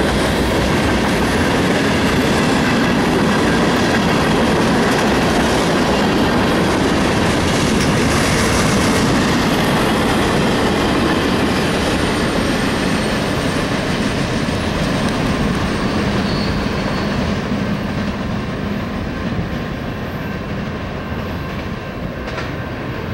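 Freight train cars rolling past close by: a steady rumble of steel wheels on rail with clickety-clack over the rail joints. The sound eases off somewhat over the last several seconds.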